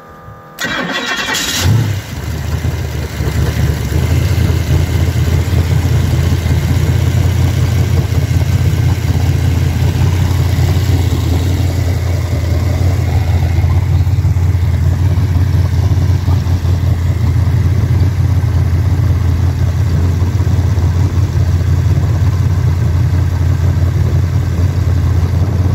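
Big-block Ford V8 jet boat engine opening up suddenly about half a second in, then running hard at full throttle with a loud, steady, deep rumble.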